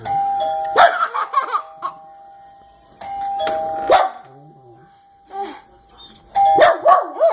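Doorbell chiming a two-note ding-dong three times, about three seconds apart. Each chime sets the dogs off into a short burst of loud barking.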